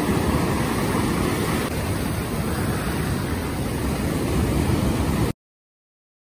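Steady rushing noise of surf breaking on the shore, heavy in low rumble, which cuts off suddenly into silence about five seconds in.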